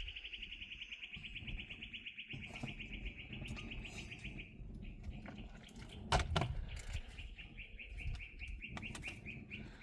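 A small bird singing a long, rapid, even trill, then a second trill that slows toward its end. A sharp knock comes about six seconds in.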